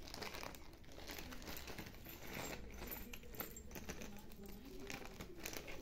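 Thin clear plastic bags crinkling and rustling as they are handled and opened, with small rotary-tool accessories shifting inside. The crackles come in an irregular scatter.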